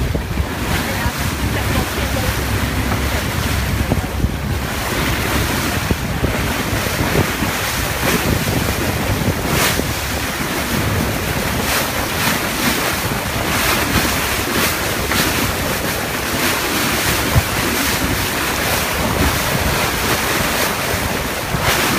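Wind buffeting the microphone in gusts over water rushing and splashing past a moving motorboat.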